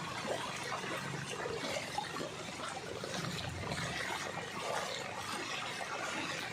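Floodwater running and trickling steadily, a continuous rushing, splashing wash of water.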